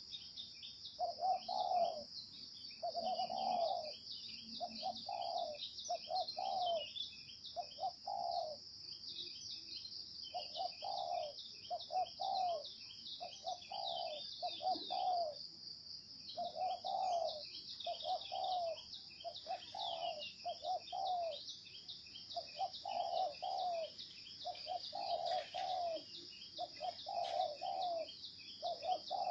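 Spotted dove cooing, short low coo notes repeated about once a second, often in pairs, with brief pauses between phrases. A constant high-pitched buzz with rapid ticking chirps runs behind it.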